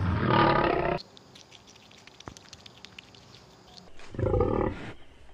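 A lion growling for about a second, cut off suddenly. Then faint scattered wet clicks of licking or chewing, and a short animal call about four seconds in.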